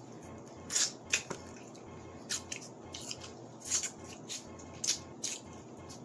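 Crab legs being eaten by hand: the shells crack and snap in irregular sharp clicks, a dozen or so, mixed with mouth sounds of biting and chewing.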